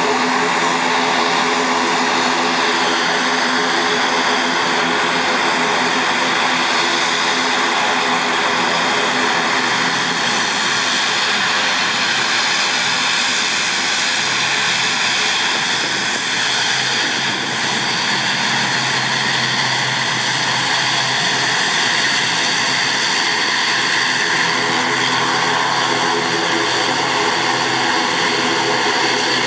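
ATR 72 twin turboprop engines running at taxi power as the airliner taxis past: a steady propeller drone with a high turbine whine on top.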